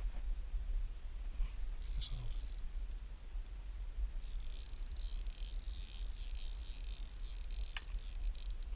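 Hooked perch splashing and thrashing at the lake surface: a short splash about two seconds in, then a longer spell of hissing splashes from about four seconds in, over a low rumble of wind on the microphone.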